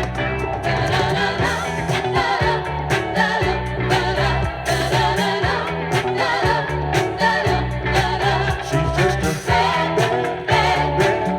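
Soul-funk song playing: bass line, drums with a steady beat, and singing that PANN hears as backing-choir voices.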